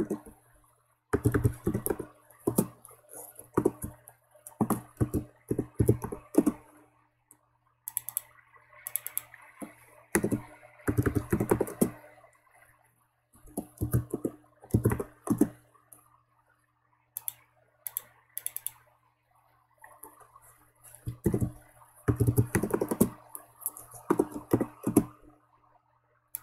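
Typing on a computer keyboard: several bursts of quick keystrokes separated by short pauses.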